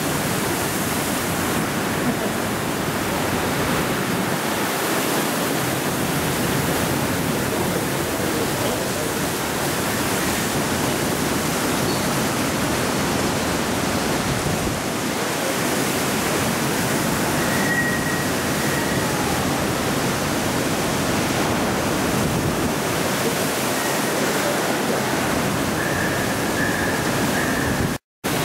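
Torrential tropical-cyclone rain and strong wind: a loud, steady, unbroken rush of noise, cut by a brief gap near the end.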